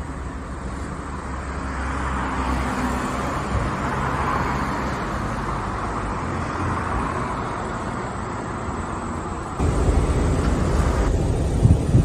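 Street traffic noise: a vehicle passing, swelling and then fading over several seconds. Near the end the sound changes abruptly to a louder, heavier rumble.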